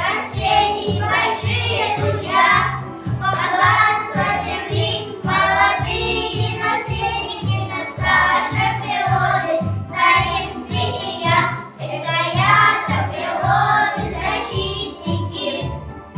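A group of young children singing a children's song together over instrumental backing with a steady, even bass beat.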